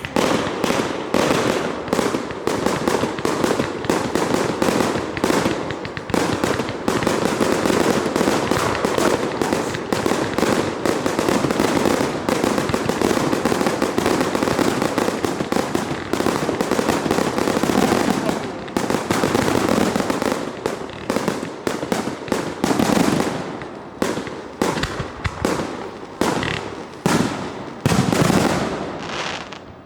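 Fireworks going off in a dense, continuous barrage of bangs and crackling, one burst overlapping the next, which stops abruptly near the end.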